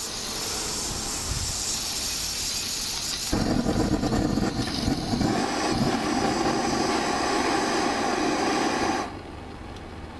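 Gas-cartridge blowtorch: gas hissing from the nozzle, then about three seconds in the flame catches and burns with a steady, louder rushing noise. Near the end the noise drops off sharply as the torch is turned down to a small flame.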